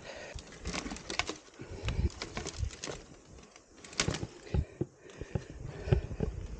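Footsteps with the rattle and knock of a mountain bike being handled over rough, rooty ground: an irregular run of thuds and clicks, loudest about four and six seconds in.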